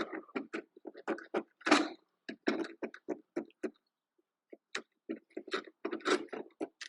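Short rasping, scraping strokes of a hand tool working wood, about three a second, with a pause of about a second near the middle.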